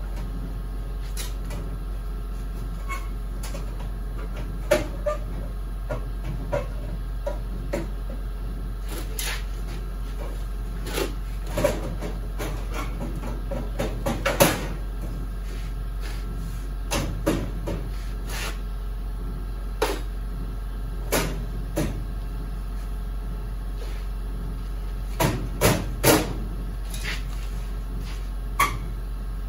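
Sheet-metal radiator support being worked into place on a car's front end: irregular metal knocks and clunks as the panel is shifted and pressed against the body, over a steady low hum.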